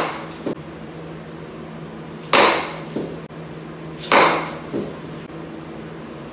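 Baseball bat hitting balls off a batting tee into a net: two sharp cracks, about two and a half and four seconds in, each followed a little later by a fainter knock. A steady low hum runs underneath.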